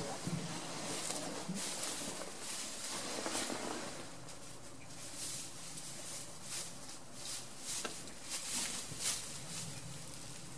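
Straw bedding rustling, with a run of short crackles as the goats move in it.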